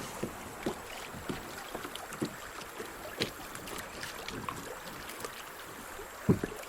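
Kayak on a creek: water splashing and dripping, with small scattered knocks and one louder knock near the end, such as a paddle striking the hull.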